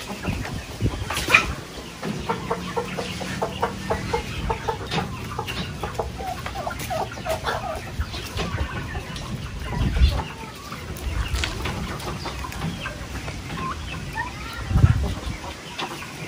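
A flock of chickens clucking as they feed on scattered grain, with a couple of dull low thumps, one about ten seconds in and a louder one near the end.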